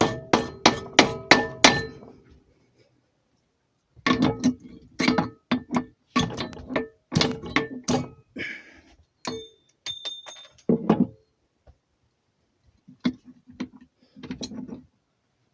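Hammer striking a stainless steel kitchen knife blade clamped in a metal vise, in quick runs of sharp metallic blows that ring after each hit, to snap the blade at a scored mark. A few lighter, higher clinks come about two-thirds of the way through.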